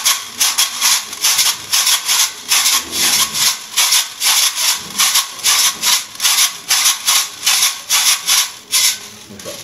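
Two handmade chacha shakers, clear plastic tubes filled with small loose fill, shaken back and forth in a steady rhythm of about three strokes a second. The shaking stops about nine seconds in.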